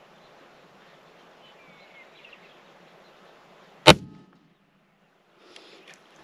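A single rifle shot about four seconds in: one sharp, loud crack with a short tail, over faint wind noise.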